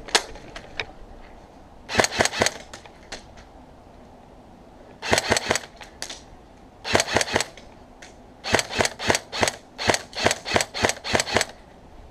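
Airsoft gun firing in quick strings of sharp shots, about four or five a second: a few shots about two seconds in, two more short strings a few seconds later, then a longer run of about fifteen shots.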